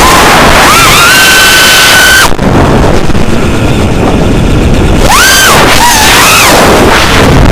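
Loud wind buffeting on an onboard camera microphone, over the whine of a model aircraft's electric motor and propeller. The whine rises and holds steady, cuts off a little over two seconds in, then comes back about five seconds in, rising and wavering as the throttle changes.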